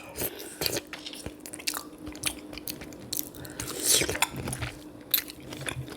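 Close-miked chewing and wet mouth clicks and smacks of someone eating a sweet potato and sausage boil in butter sauce.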